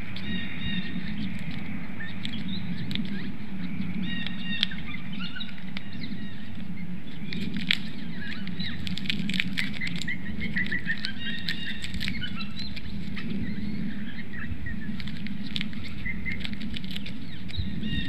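Bald eagle feeding on a bird carcass in its stick nest: scattered clicks and rustles of beak and nest material over steady low background noise. Short high bird calls come and go in the background.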